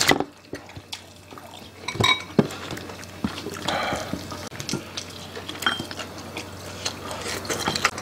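Chopsticks and utensils clicking against ceramic dishes and bowls, in scattered single clicks, with wet, messy eating sounds of braised pork backbone between them.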